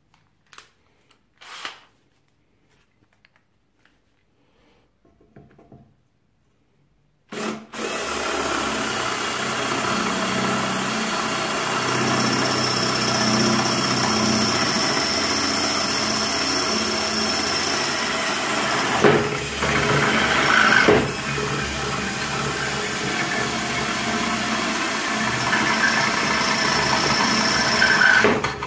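Parkside PBSA 12 D3 12-volt cordless drill in drilling mode, boring a larger masonry bit into a perforated clay brick: it runs steadily for about twenty seconds, starting about seven seconds in, with two brief louder surges about two-thirds of the way through. Before it starts, a few light clicks as the bit is fitted in the chuck.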